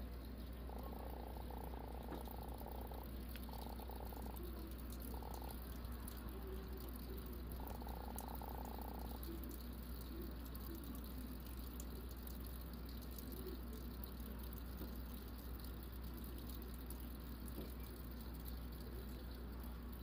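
A pet frog calling in four short buzzing bursts during the first half, over a steady low hum.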